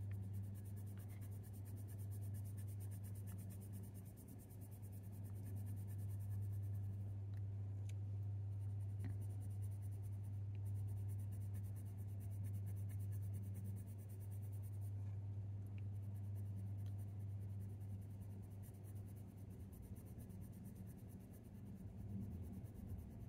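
Coloured pencil scratching lightly on hot-pressed watercolour paper in short, repeated shading strokes, over a steady low hum.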